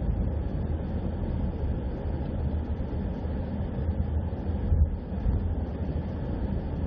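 Steady low rumble of a vehicle moving along a road, with no distinct events.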